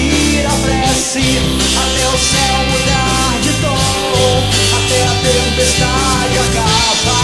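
Rock band recording: distorted electric guitars, bass and drums playing loud and steady, with a wavering melodic lead line over the top.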